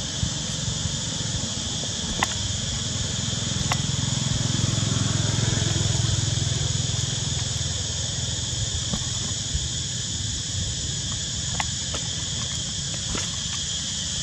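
Steady high-pitched insect drone holding in two high bands, with a low rumble that swells and fades about four to seven seconds in, and a few faint clicks.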